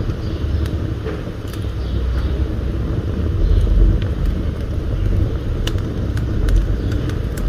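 Wood fire burning in a brick wood-burning stove: a steady low rumble with scattered sharp crackles and pops.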